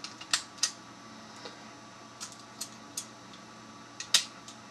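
Master Lock 175 combination padlock being handled, giving about a dozen sharp, irregular clicks, the loudest a pair about four seconds in.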